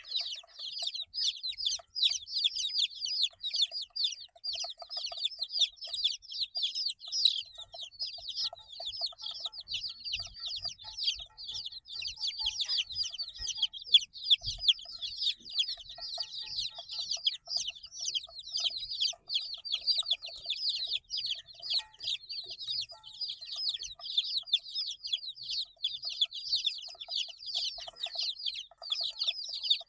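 A group of 8-day-old chicks peeping continuously, many short high chirps overlapping, with a few lower calls among them.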